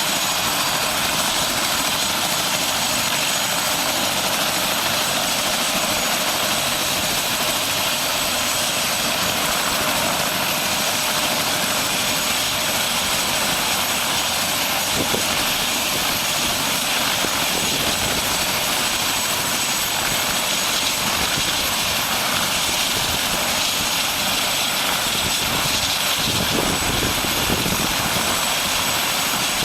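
Helicopter running steadily, a loud, even engine and rotor noise that holds unchanged throughout.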